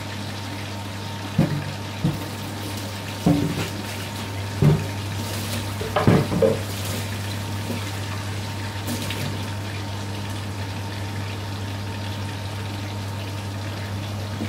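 Chana masala simmering in a lidded frying pan over a low gas flame: a steady watery bubbling hiss under the lid, over a constant low hum. A few brief louder sounds come in the first half.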